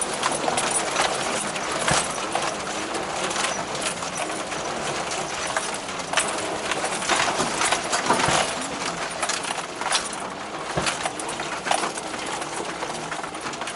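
Steady rush of a clear stream, with irregular clacks and knocks over it.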